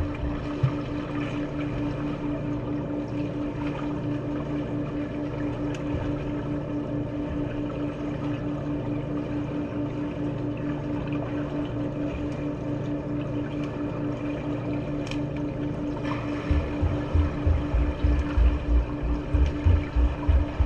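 Steady machine hum with a pulsing tone, joined by irregular low thumps about three-quarters of the way through.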